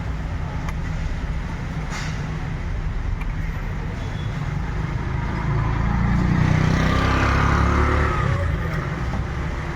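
A motor vehicle's engine rumbling steadily nearby, swelling louder for about three seconds midway and then easing off, as a vehicle passes by.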